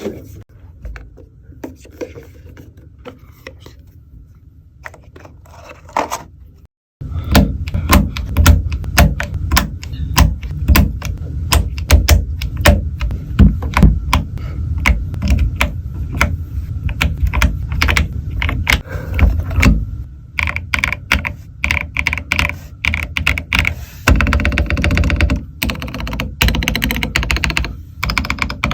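Typing on a mechanical keyboard with lubed KiiBOOM Matcha Latte switches, giving deep, thocky clacks. The first few seconds hold only sparse, fainter keystrokes. From about seven seconds in comes steady, fast typing, and near the end a denser run of keystrokes.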